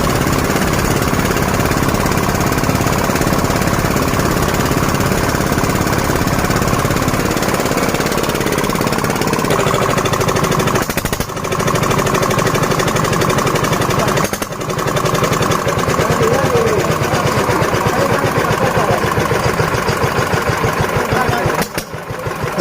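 Corn flour-milling machine running loudly and steadily, with a rapid pounding rattle. It dips briefly three times and turns more pulsing after the second dip.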